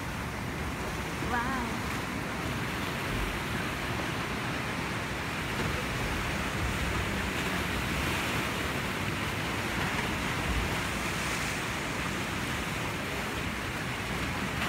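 Sea surf washing and breaking among rocks below, a steady rush with no breaks.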